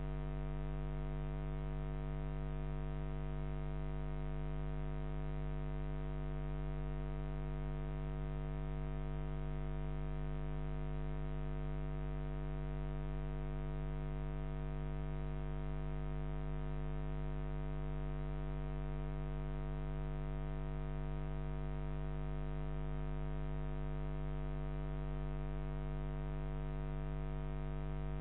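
Steady electrical mains hum, a low buzz with many overtones that never changes.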